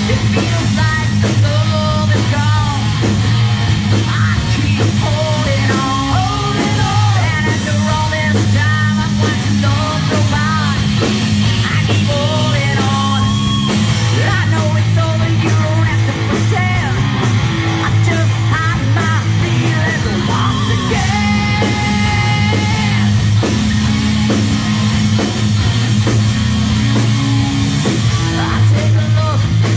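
A live rock band playing: electric guitar and drums under a male singer's vocals, loud and steady throughout.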